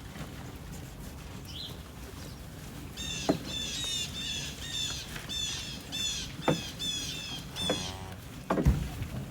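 A songbird singing a fast series of repeated, downslurred chirps, about two or three a second, starting a few seconds in and stopping near the end. A few sharp knocks sound through it, the loudest near the end.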